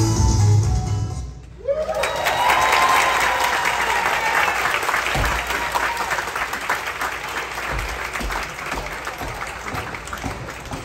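Recorded dance music stops about a second in, and the audience breaks into applause with a rising cheer as it starts. The clapping then thins and fades toward the end.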